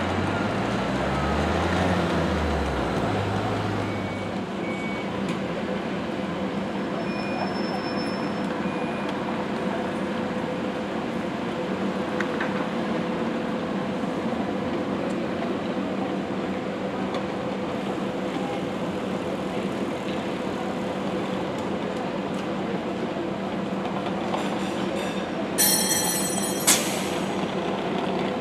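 A trolleybus's electric hum at a steady pitch over city street traffic, with a passing engine rising and falling in the first few seconds. Near the end comes a short, loud hiss with a sharp crack.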